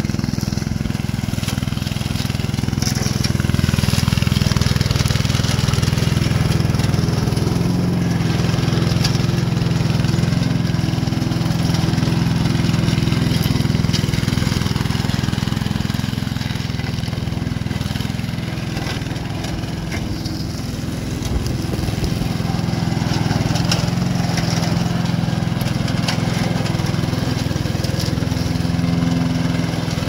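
Gasoline engine of a Vigorun VTC550-90 remote-control tracked lawn mower running steadily under load as it cuts through tall weeds.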